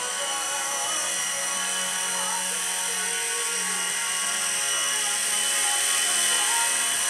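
Small remote-control toy helicopter's electric motor and rotors whirring in a steady high whine as it flies, getting a little louder as it passes close by near the end.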